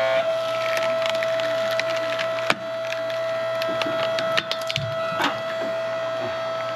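Hydraulic log splitter running with a steady whine while a log is forced onto its wedge, the wood creaking and cracking as it splits. There is one sharp crack about two and a half seconds in and a run of crackles near the five-second mark.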